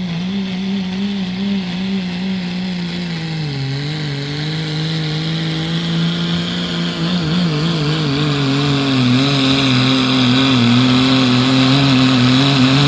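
Turbocharged diesel pickup engine held at high revs under full load as it pulls a weight-transfer sled. The note wavers and sags slightly a few seconds in as the sled's weight bears down, then holds and grows louder toward the end.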